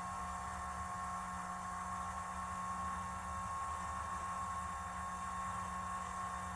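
Steady electrical hum with a constant thin high whine, unchanging throughout.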